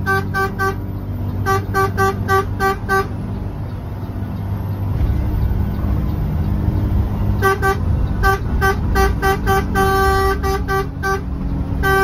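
Bus horn tooted in quick short blasts, about four a second: runs of toots in the first three seconds, a pause, then a longer run in the second half. Underneath, the bus engine drones steadily, heard from inside the cabin.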